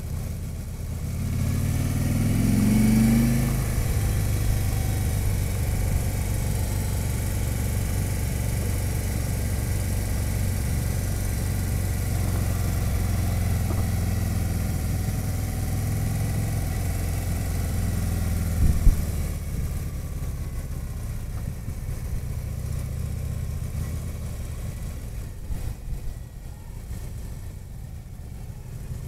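Touring motorcycle's engine heard from the rider's seat while riding, rising in pitch as it accelerates about two seconds in, then running steadily at speed with a hiss of wind. A single knock comes about two-thirds of the way through, and the engine gets quieter near the end.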